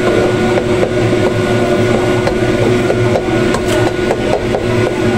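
Beaten eggs frying in a wok under a steady mechanical hum, with a few sharp scrapes and taps of a plastic slotted spatula in the second half.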